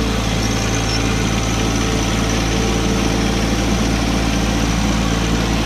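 John Deere compact tractor's diesel engine running steadily as the tractor drives with a loaded front bucket, heard from the operator's seat.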